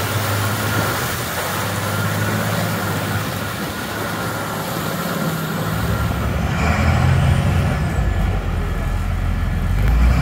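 Large tundra vehicle driving over snow-covered tundra: its engine runs with a steady low drone under a broad road and tyre noise. The low rumble grows heavier from about six seconds in.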